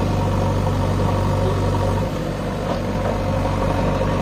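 Diesel engines of JCB backhoe loaders running steadily, their low hum easing briefly about two seconds in.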